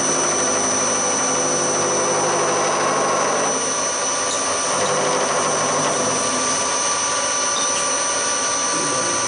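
Hafco HM 54GV milling machine running, its end mill cutting aluminium, with a steady motor whine under the cutting noise. The cutting noise eases off about three and a half seconds in while the spindle keeps running.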